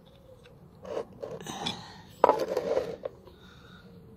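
Short scrapes and light metal clinks of hand tools working on a motorcycle brake caliper, the longest scrape about two seconds in.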